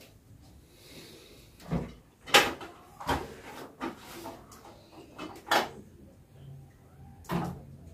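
Plastic toiletry bottles and containers being picked up and set down on hard bathroom surfaces: a series of short knocks and clatters, about seven of them, the loudest about two and a half seconds in.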